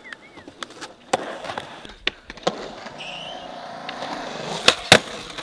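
Skateboard wheels rolling on concrete, with a series of sharp clacks of the board, the two loudest coming close together near the end.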